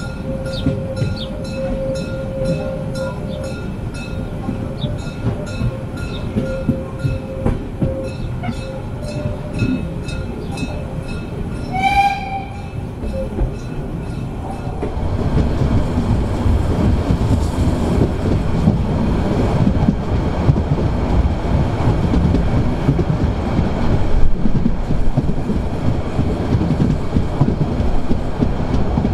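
Molli narrow-gauge steam train running, heard from aboard: wheels clicking steadily over the rail joints under a faint steady whine, with a short whistle toot about twelve seconds in. About halfway through the sound turns into a louder, fuller rumble of the moving train.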